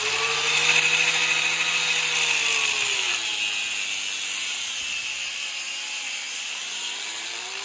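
Electric cutting tool running with a freshly changed blade, cutting with a strong hiss; its motor pitch sags under load about three seconds in and rises again near the end.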